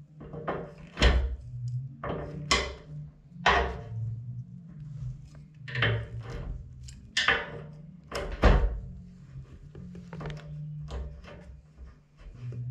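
A series of knocks and thuds at uneven intervals, about six of them loud, over a low steady hum.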